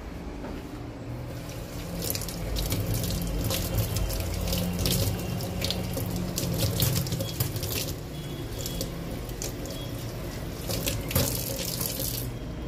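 Kitchen tap running into a stainless steel sink, water splashing as a bunch of coriander leaves is rinsed by hand under the stream; the flow gets louder about two seconds in.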